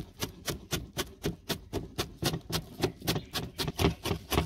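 Knife finely chopping fenugreek (methi) leaves: quick, even chops at about four a second.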